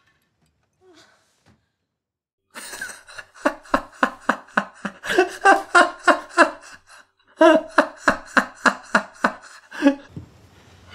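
A man laughing hard in long runs of rhythmic 'ha' bursts, about three a second. It starts about two and a half seconds in, pauses briefly for a breath around the middle, and dies down near the end.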